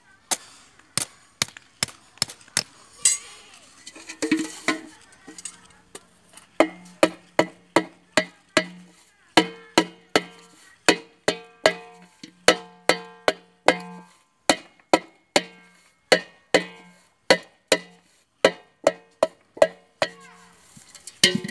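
A hammer strikes a metal pot set over an iron stake, riveting a thick aluminium patch sheet into its leaking bottom. Blows come steadily, about two a second. From about six seconds in each blow rings the pot with a low hum.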